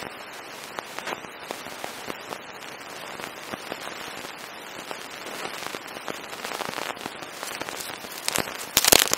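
Dry straw bedding rustling and crackling with many small clicks as wolves move in it and an adult wolf nuzzles the camera close to its microphone. Near the end come louder bumps and scrapes as the wolf knocks the camera about.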